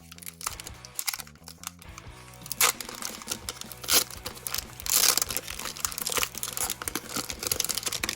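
Foil wrapper of a Pokémon booster pack crinkling and tearing as it is ripped open by hand, with louder rips about two and a half, four and five seconds in.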